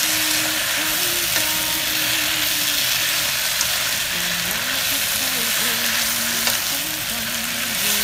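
Bamboo shoots, pork and red curry paste sizzling steadily in a hot pan while fresh Thai basil leaves are stirred in with a wooden spatula.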